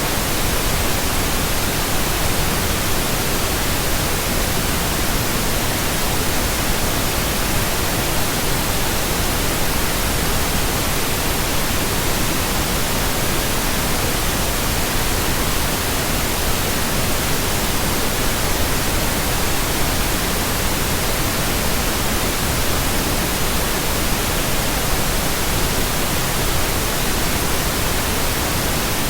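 Steady synthesized pink noise: an even, unchanging hiss spread across the whole range from deep to high.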